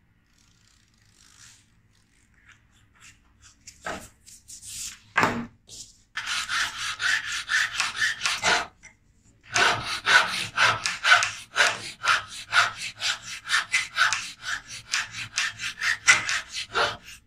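Flat hand file rasping back and forth across a pale grip blank clamped in a bench vise, in quick repeated strokes. Faint at first, the filing starts in earnest about six seconds in and stops briefly a little past the middle.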